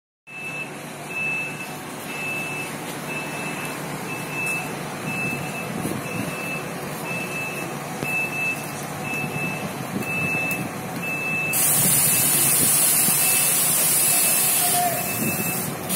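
Reversing beeper of an APSRTC Volvo coach sounding just under twice a second over the steady rumble of its idling diesel engine as the bus backs out. About twelve seconds in, a loud hiss of air joins for about three seconds.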